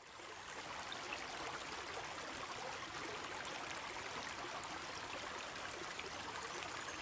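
Faint, steady rush of flowing river water, fading in at the start.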